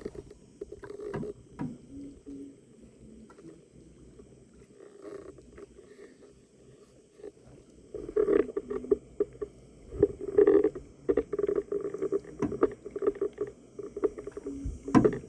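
Canoe paddling: paddles dipping and splashing in the water, with short knocks. Quiet for the first half, then busier from about eight seconds in, with irregular clusters of strokes.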